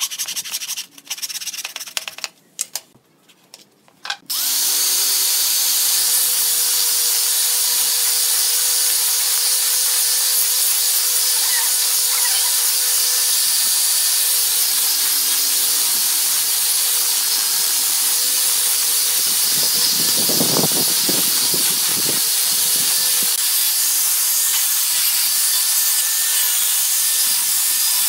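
A few strokes of a hand saw cutting a pine board, then about four seconds in an angle grinder fitted with a sanding disc starts and runs steadily with a high whine as it sands thin pine strips, turning rougher for a couple of seconds around twenty seconds in.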